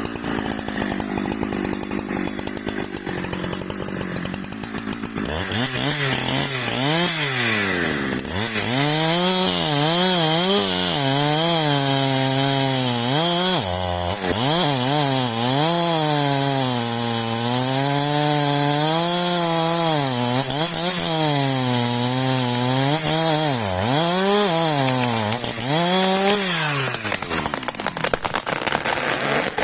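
Husqvarna chainsaw running at high revs, then cutting into termite-damaged gerunggang wood. Its engine pitch drops and recovers over and over as the chain bites and loads it, and it rises back to a high steady rev near the end.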